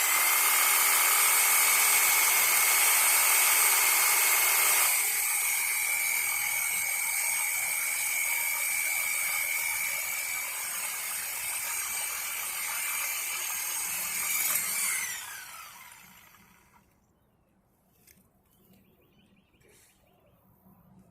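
Electric saw running at full speed as it cuts through a downed tree, a steady high whine that gets a little quieter about five seconds in. At about fifteen seconds the motor is released and winds down with a falling pitch, then stops.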